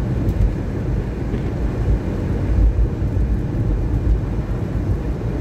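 Steady low rumble of road noise inside a car cabin as it drives on a wet road.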